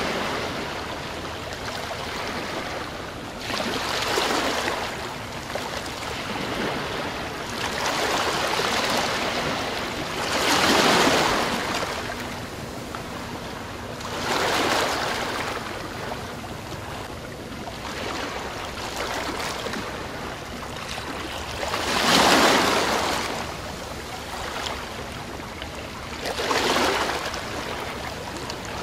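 Ocean surf: waves washing in and receding, with six swells that rise and fade every few seconds.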